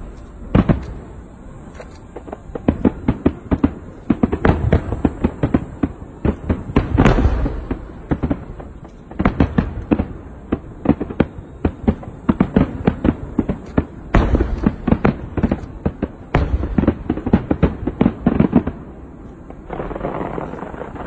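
Aerial fireworks display: rapid volleys of bursting shells and crackling, many sharp bangs in quick succession with short lulls between volleys.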